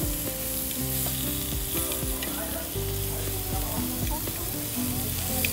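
Slices of meat sizzling on a hot domed tabletop grill pan, a steady hiss, with chopsticks turning the pieces.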